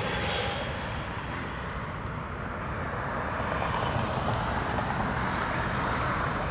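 Jet engines of a Spirit Airlines airliner coming in low on its landing approach: a steady rushing engine noise that grows slightly louder in the second half.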